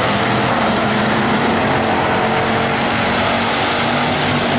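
Bomber-class stock cars racing around the track, their engines heard together as a steady, loud drone.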